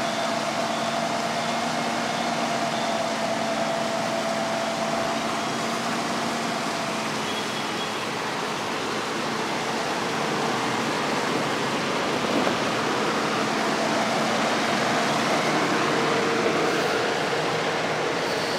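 A fire truck's engine running steadily with its pump engaged, under a steady rush of noise. A low hum changes pitch slightly partway through.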